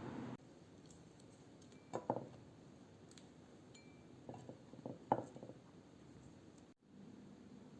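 A few light clinks and knocks of a glass jar and kitchen utensils being handled: a couple about 2 seconds in, then a quick run of them ending in the loudest clink about 5 seconds in.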